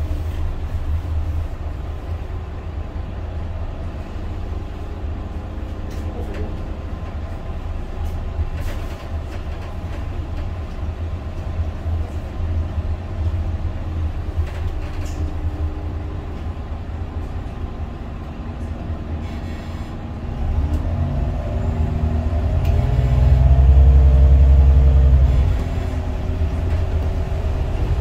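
Iveco Cursor 8 straight-six diesel of an Irisbus Citelis 12 city bus, heard from inside the cabin: a steady low rumble for most of the time, then the engine pulls hard with its pitch climbing. The sound drops briefly at about 25 s as the Voith automatic gearbox shifts up, and it climbs again near the end.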